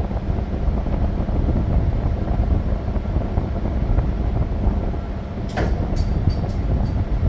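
Steady low rumble of a moving vehicle, with a few short clicks or rattles about five and a half to six and a half seconds in.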